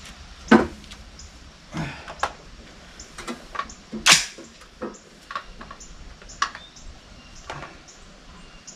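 Two loud, sharp shots from a Ruger SFAR .308 semi-automatic rifle, about half a second in and again just after four seconds, with lighter knocks and clatter between them.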